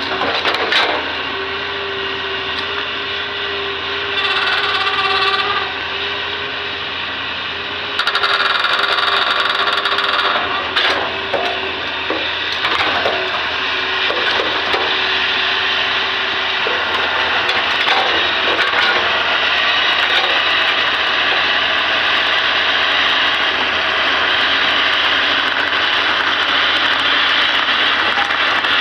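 Hitachi ZX200 hydraulic excavator working, its engine and hydraulics running steadily and louder about a third of the way in. A few knocks and scrapes from the bucket come in the middle.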